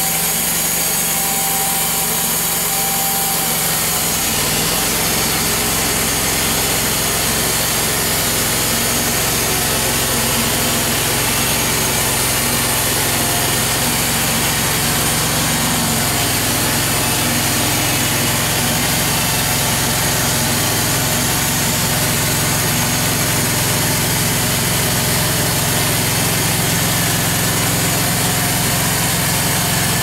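Band sawmill's engine running steadily, its low note shifting about four seconds in.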